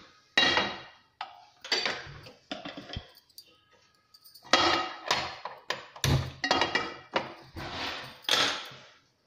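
Frying pan knocking and clanking against a glass-top gas stove as it is set down and moved into place. The knocks are short and ring briefly: a few at first, then a quick cluster from about halfway through.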